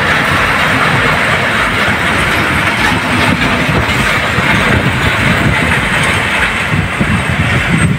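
Pakistan Railways passenger coaches rolling past at close range as an express train draws into the station: a steady rumble and clatter of steel wheels on the rails.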